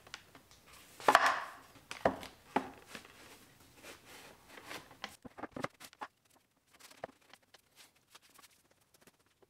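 Solid maple boards knocking against each other and the workbench as they are laid side by side and pushed together edge to edge for a glue-up. A sharp wooden knock comes about a second in, then a few lighter knocks, fading to faint scattered clicks in the second half.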